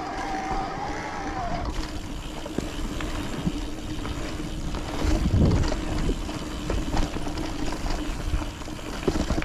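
Mountain bike riding a rocky, rooty singletrack: wind buffeting the helmet-camera microphone, with tyres rumbling and the bike rattling and clicking over roots and rocks. A steady hum runs underneath, and a louder low rumble comes about five seconds in.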